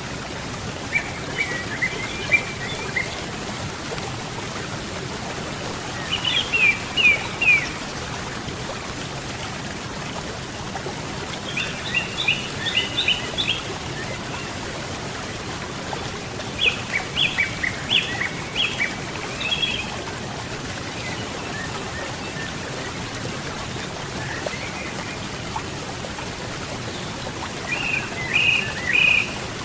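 Steady rushing of a river, with a songbird singing short phrases of quick high notes every few seconds over it, five phrases in all, the last near the end.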